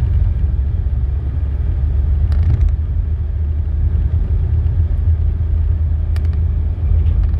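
Steady low rumble of a car driving, with a few light clicks about two seconds in and again near the end.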